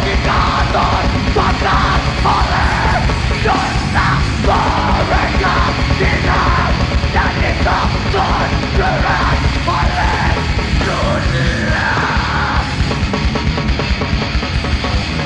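Live heavy metal band playing loud, with distorted guitars, bass and drums under harsh shouted vocals. The vocals stop about three seconds before the end while the band plays on.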